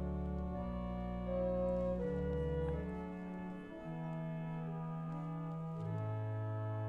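Organ music: slow, sustained chords over deep held bass notes, the chords changing every second or so.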